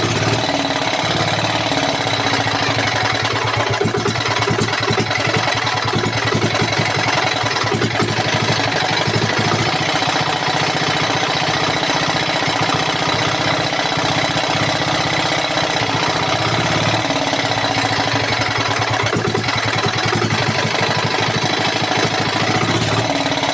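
An engine running at a steady idle, a fast even chugging, after a hard start.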